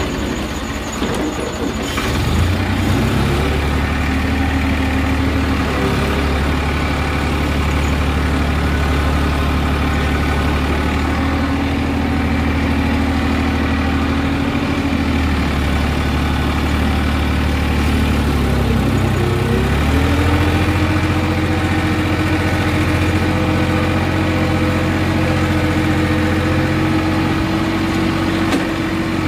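Massey Ferguson 5245 tractor engine running while driving. Its pitch climbs about two seconds in and holds steady, dips around two-thirds of the way through, then climbs again to a higher steady note before falling away near the end.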